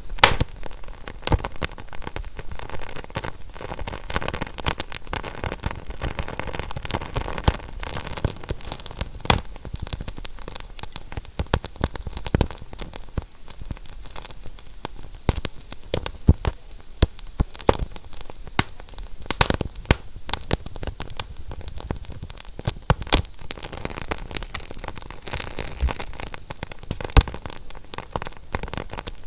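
Fire crackling: irregular sharp snaps and pops over a steady hiss.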